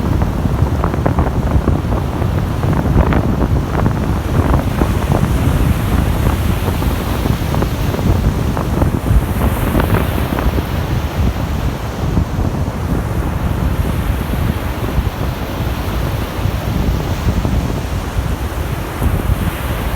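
Baltic Sea waves washing onto the shore, heard through strong wind buffeting the microphone, which adds a steady low rumble.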